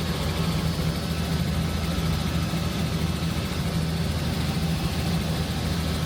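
Helicopter in flight heard from inside the cabin: a steady, unbroken drone of engine and rotor.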